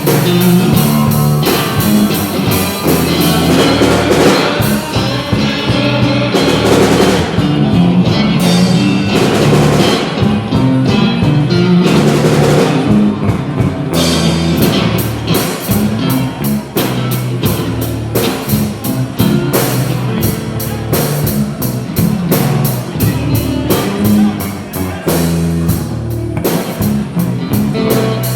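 Rock music with electric guitar and a drum kit playing, the drums striking in quick succession through the second half.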